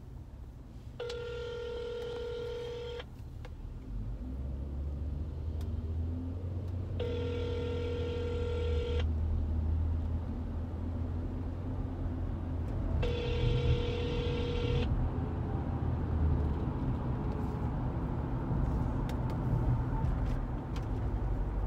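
Phone ringback tone on speakerphone: an outgoing call ringing three times, each ring about two seconds long and six seconds apart, in the US cadence. A low car rumble sets in about four seconds in and grows under the rings.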